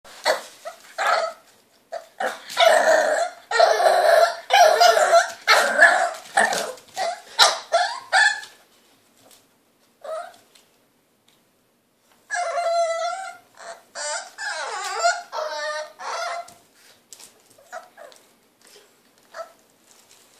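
French bulldog puppy barking and yapping impatiently in quick runs, demanding a hand brush she can't reach. After a pause comes a second run with longer, wavering calls, then only a few light ticks near the end as her paws scrabble at the wicker basket.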